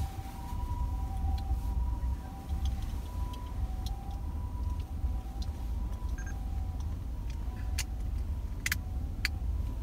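Low road and engine rumble inside a moving taxi. Behind it, quieter, a two-tone siren alternates between a high and a low note. A few sharp clicks come near the end.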